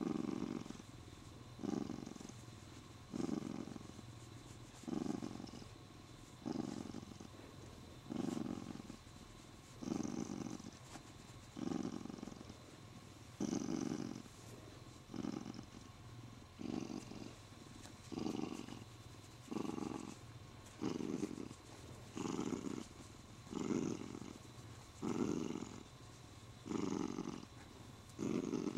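Siamese cat purring steadily, the purr swelling on each breath about every second and a half to two seconds.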